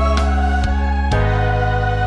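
Background music of held keyboard chords, moving to a new chord about a second in.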